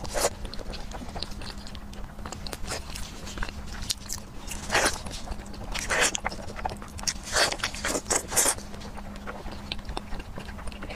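Close-miked eating of a braised pork trotter: biting and chewing the meat, with gloved hands pulling it apart. Several louder bursts come in the middle stretch.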